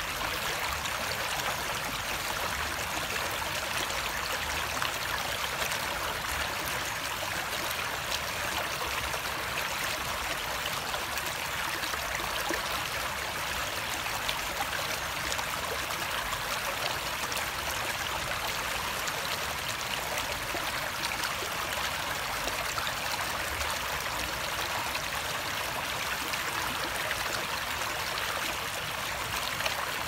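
Running water, a steady trickling rush with small splashing ticks scattered through it.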